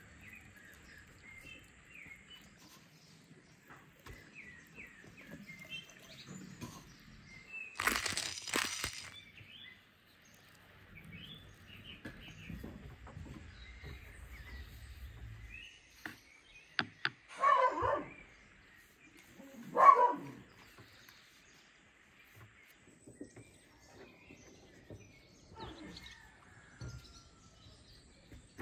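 Small birds chirping in the background. Over the chirping come a sharp clatter about eight seconds in and two brief, louder noises later on, the second of these being the loudest sound.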